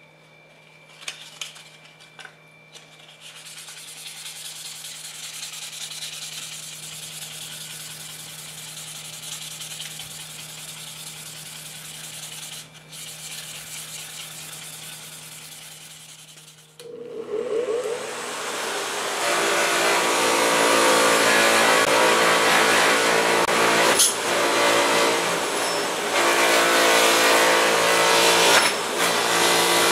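Fine 1000-grit wet-and-dry abrasive paper rubbed back and forth by hand over the steel blade of a caulking iron, a steady hiss. About 17 seconds in, a bench grinder fitted with a polishing wheel starts up, its whine rising to speed, and runs steadily and loud while the steel is held against the wheel.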